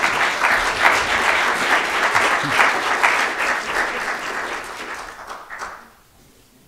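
Audience applauding at the end of a talk, the clapping thinning out and dying away about six seconds in.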